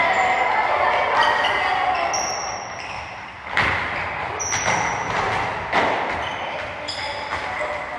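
A soccer ball being kicked and bouncing during practice, several separate thuds, with short high squeaks and children's voices in the background.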